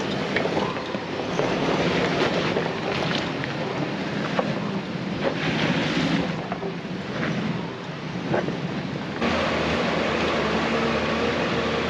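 Toyota Fortuner 4x4 crawling over loose slate rocks and mud: stones knock and crunch under the tyres now and then over the engine, with heavy wind noise on the microphone. About nine seconds in, it cuts abruptly to a steadier engine running, from a green jeep on the rocky track.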